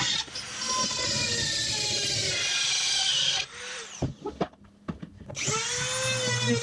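Handheld rotary tool cutting into a black plastic enclosure, its high whine sagging in pitch under load. It cuts off about three and a half seconds in, a few knocks follow as the tool is handled, and it spins back up with a rising whine near the end.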